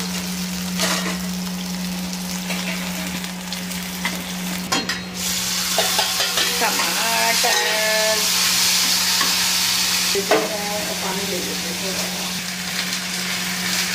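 Onion, green chilli and garlic sizzling in hot oil in an aluminium pan while they are stirred, frying the tadka for masala Maggi. About five seconds in, the sizzle grows louder as chopped tomatoes go into the pan, over a steady low hum.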